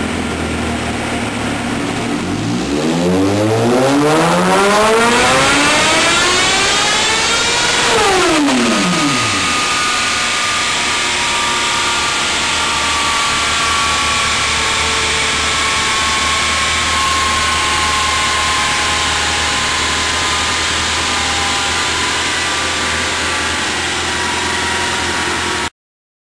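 Kawasaki ZX-6R inline-four through a custom short 4-1-1 exhaust on a dyno: a full-throttle pull, the pitch rising steadily for about six seconds, then the throttle shuts and the revs fall quickly. After that comes a steady loud noise with faint, slowly falling whines, which cuts off abruptly near the end.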